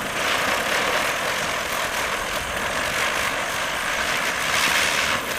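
Ground spinner firework (chakri) whirling on the ground and throwing off sparks, with a steady hiss from its burning charge.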